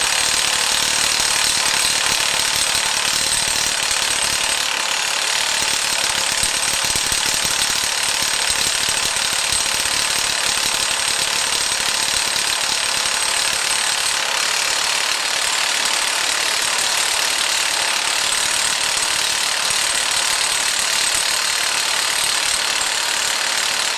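Milwaukee half-inch cordless impact wrench hammering continuously on the piston nut of a skid-steer lift-cylinder rod, running on a battery showing two bars. It fails to break the nut loose and cuts off suddenly at the end.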